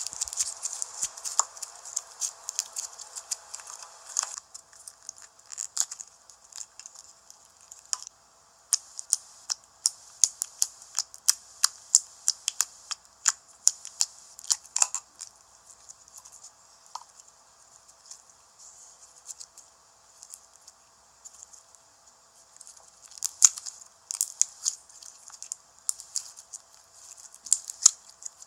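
Slime being poked and played with by hand, giving irregular runs of sharp clicks and pops, several a second, that thin out for a few seconds past the middle.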